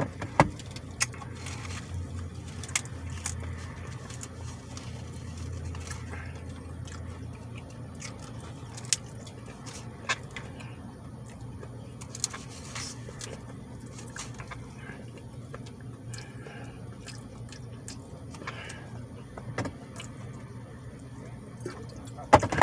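Chewing and mouth sounds from a man eating with a full mouth, with scattered sharp clicks and handling noises, the loudest near the end as a drink bottle is handled. Under it runs a steady low hum in a car cabin.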